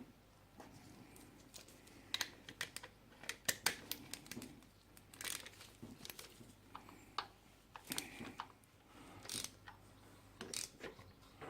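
Faint, irregular small clicks, taps and rustles of hand tools and small engine parts being handled on a motorcycle engine.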